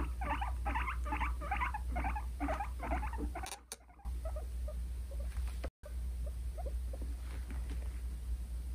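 Guinea pig making a rapid series of short, even calls, about three a second, which break off about three and a half seconds in and give way to fainter, scattered ones. These are aggressive dominance noises between two guinea pigs.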